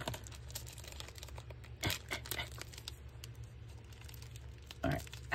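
Paper and craft materials being handled: intermittent rustling and crinkling with a few short sharp clicks, busiest about two seconds in and again near the end, over a low steady hum.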